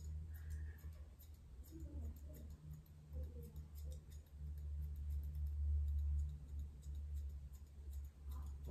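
Scissors snipping the curly coat of a Bichon Frise's head: scattered faint clicks, over a steady low hum.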